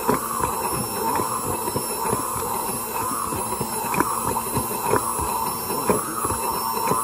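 Handheld immersion blender running steadily in a glass jar, with frequent small knocks, as it whips oil and egg yolk into a thick emulsion.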